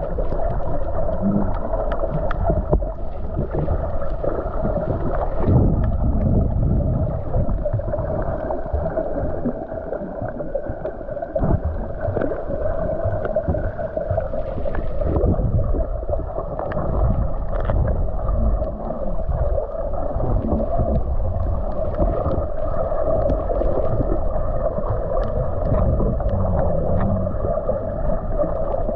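Muffled, steady churning water noise with a constant low hum, heard underwater through a camera's waterproof housing.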